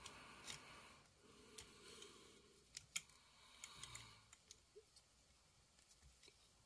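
A scattering of faint clicks and soft rustling from small plastic action-figure parts being handled and pressed into place.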